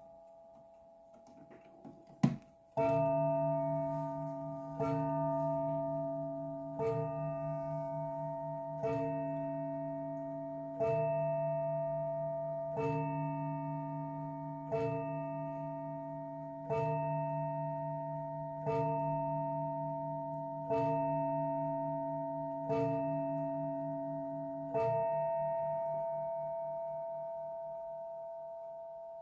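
Lenzkirch mantel clock striking twelve: twelve single strokes about two seconds apart, each ringing and slowly fading. A sharp knock comes just before the first stroke.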